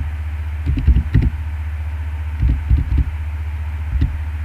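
Computer keyboard typing in a few short runs of key clicks over a steady low electrical hum.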